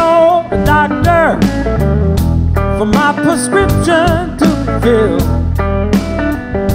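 Live blues-rock band playing an instrumental passage, with electric guitar, bass guitar and drums. A lead line bends and wavers in pitch over a steady bass line and regular drum hits.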